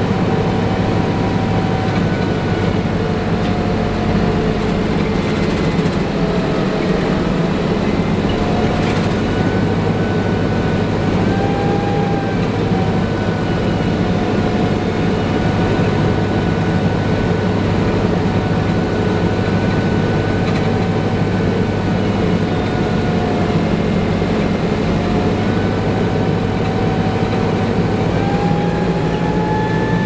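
Interior drone of a 1994 TMC RTS bus's Detroit Diesel Series 50 engine and Allison VR-731 automatic transmission under way, with a steady whine that drifts slightly up and down in pitch. The transmission's lock-up is not engaging, which gives the whine that the owner calls a "hybrid effect".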